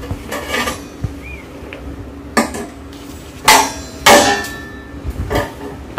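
Several sharp metallic clanks with a short ring from tack-welded 4 mm steel sheet panels being knocked and bent up into a bowl on a steel welding table; the loudest two come a little past the middle.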